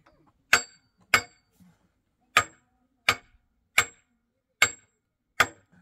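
Hammer blows: seven sharp strikes in an uneven rhythm, roughly one every 0.6 to 0.8 s, each with a brief high metallic ring.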